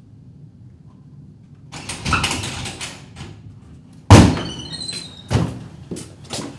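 A door being rattled, then a loud bang about four seconds in as it is thrown open, followed by a second knock and a few lighter ones.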